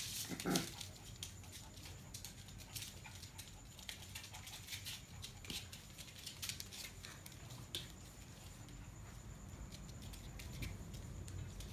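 Puppies play-fighting on a hard floor: scattered clicks and scuffles of paws and claws, with one louder sound about half a second in.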